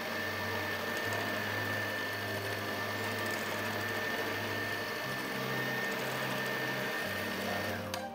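Electric hand mixer running steadily with a constant high whine, its beaters whisking egg whites in a stainless steel bowl; it switches off near the end.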